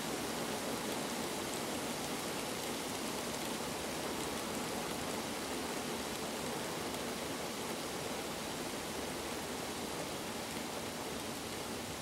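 Heavy rain falling steadily on open water and reeds, an even hiss with no breaks.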